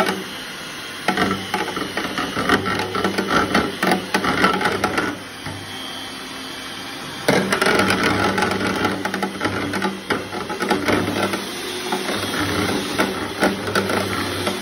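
Electric hand mixer running, its beaters whisking strawberries and milk and rattling against the sides of a plastic container. The knocking eases for a couple of seconds about five seconds in, then picks up again suddenly.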